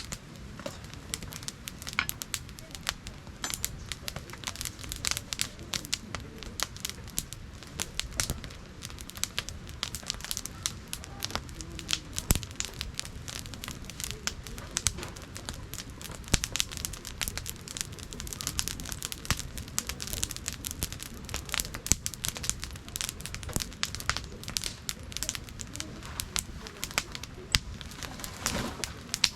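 Wood campfire crackling, with many irregular sharp pops and snaps over a steady low rumble.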